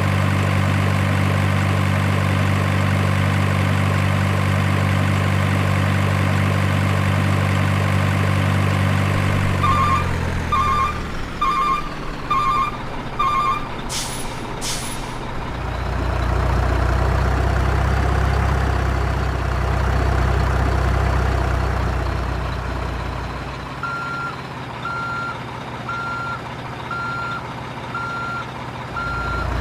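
Model RC trucks' sound units playing a steady diesel engine sound, then five short reversing beeps about ten seconds in and two quick air-brake hisses. A low engine hum follows, with a second, evenly spaced run of reversing beeps in the last few seconds.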